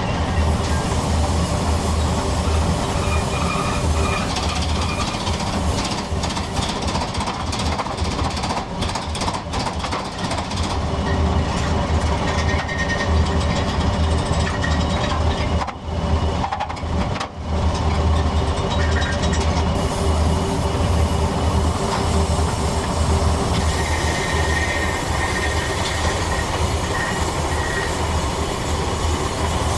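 A machine running steadily with a strong low hum and a few faint steady higher tones, dipping briefly twice about halfway through.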